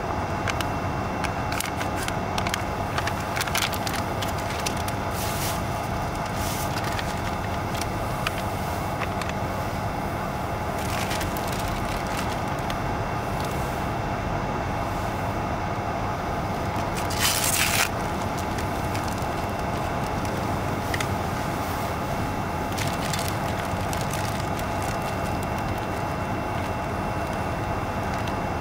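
A steady hum with scattered faint clicks, and one short loud hiss about seventeen seconds in.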